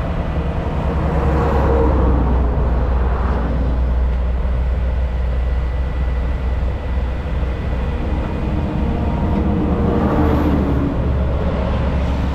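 Heavy tow truck diesel engines running with a steady low rumble during a trailer pull.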